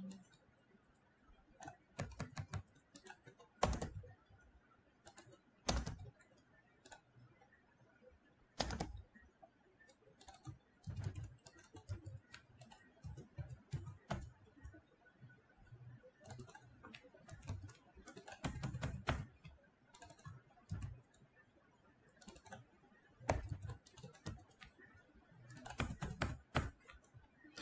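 Typing on a computer keyboard: irregular runs of keystrokes with short pauses between them.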